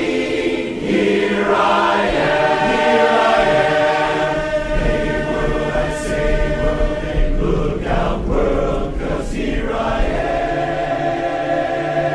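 Large men's barbershop chorus singing a cappella in close harmony, moving through sustained chords and settling on a long held chord near the end.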